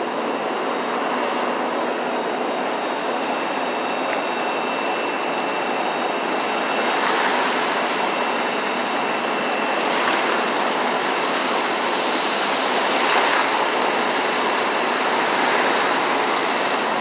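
Steady rushing noise of passing vehicles, growing a little louder and brighter about halfway through.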